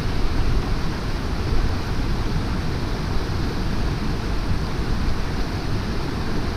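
Wind buffeting the camera microphone: a steady low rumbling rush with no clear events.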